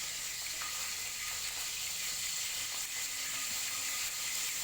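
Cooking oil heating in a frying pan, sizzling steadily with a few faint pops where a little water has got into the oil.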